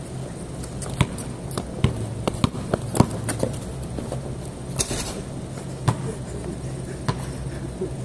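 Basketball bouncing on an outdoor concrete court: a string of irregular sharp thuds, thickest in the first three seconds, then a few more spaced out.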